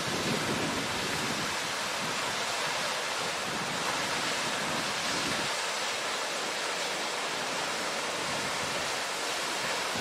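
Steady rush of a waterfall. Low wind rumble buffets the microphone in the first half.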